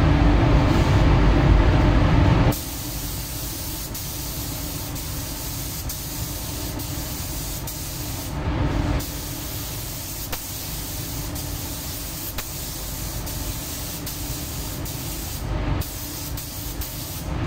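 Compressed-air gravity-feed spray gun hissing steadily as it lays a light mist coat of clear coat on a car's body, set to about two bar. There are brief breaks in the hiss about eight and a half and fifteen and a half seconds in. A louder low rumble underneath cuts off about two and a half seconds in.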